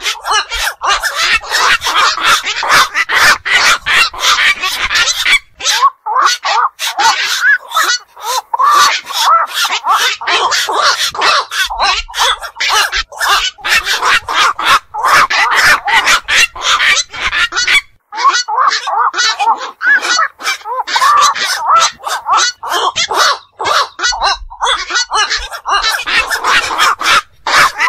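Recorded calls of black-crowned night herons: short calls in rapid, almost unbroken succession.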